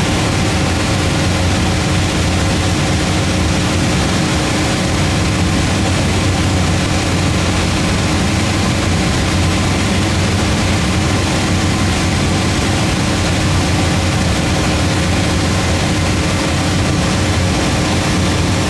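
Cessna 172's piston engine and propeller droning steadily in cruise flight, heard inside the cabin with a steady rushing hiss of air over the airframe.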